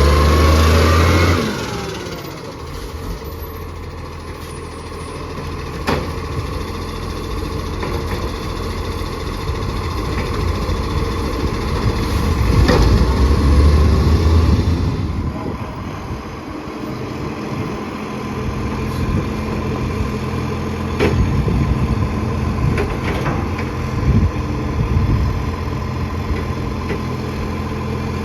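Recycling garbage truck's engine running, with a loud surge at the start and another about 13 seconds in, then settling to a steadier run. A few sharp knocks come through. The truck has an exhaust leak.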